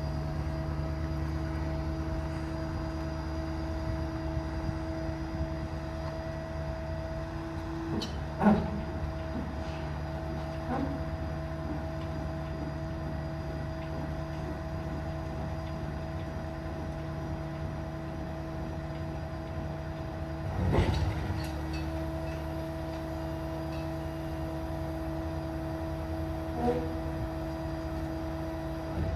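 Steady drone of the truck's running 6.7 Powerstroke diesel driving the crane's PTO hydraulic system, with a constant hum. Brief knocks sound about 8 seconds in, about 21 seconds in and near the end.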